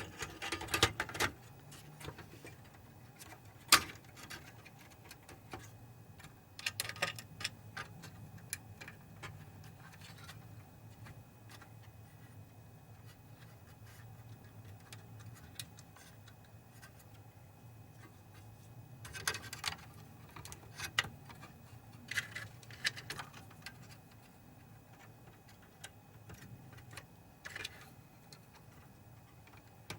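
Small clicks, taps and rattles of metal and plastic parts being handled as a projector's main board is fitted into its chassis. They come in scattered clusters with a sharp knock about four seconds in, over a faint low steady hum.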